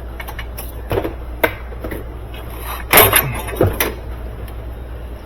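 A few short knocks and clunks of washing-machine parts being handled, the loudest about three seconds in, over a steady low hum.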